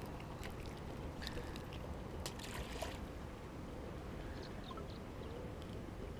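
Steady low wind noise buffeting the microphone, with a few faint light clicks in the first half.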